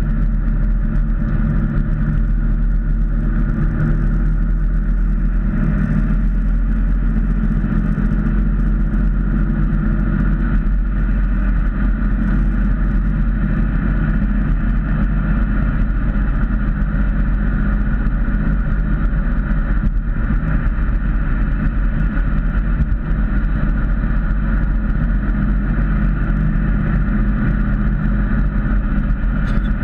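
Ford Mustang cruising at highway speed, heard from inside the cabin: a steady engine drone mixed with road and wind noise.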